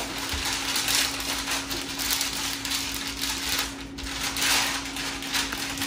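A wooden rolling pin pushed back and forth over parchment paper pressed onto a sheet of ground beef, making repeated rustling, crinkling strokes of the paper. A steady faint hum runs underneath.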